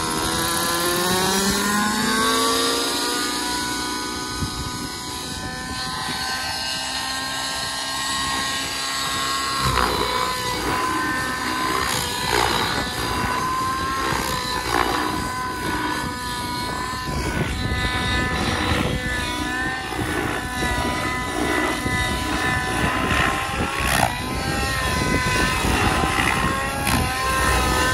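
Gaui NX7 radio-controlled helicopter's smoking glow-fuel engine and rotors spooling up, the pitch rising over the first few seconds, then running steady. From about ten seconds in, engine and rotor pitch swing rapidly up and down as the helicopter flies 3D aerobatics.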